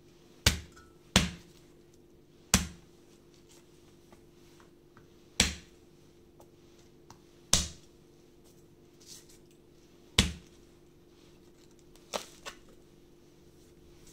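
Kitchen knife knocking on a cutting board as garlic is cut: single sharp knocks at irregular intervals, about one to three seconds apart, with two in quick succession near the end.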